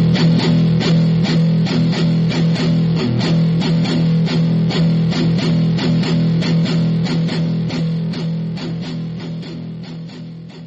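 Guitar music: a quick, steady rhythm of strummed chords over a held low note, fading out toward the end.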